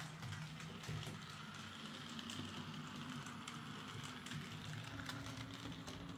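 Bachmann Ivatt 2MT 2-6-2 tank, an OO gauge model locomotive, running on track: a steady low motor hum with faint ticks. It runs okay now that it has new axles and new gears.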